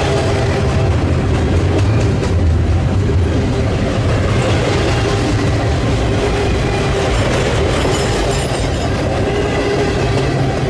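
Double-stack intermodal freight train's container well cars rolling past close by: a steady, loud rumble of steel wheels on rail with continuous clatter and a thin steady whine.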